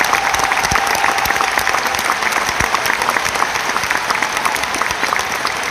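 Large stadium crowd applauding at length after a farewell speech, with a regular clapping beat of about four claps a second running through the applause.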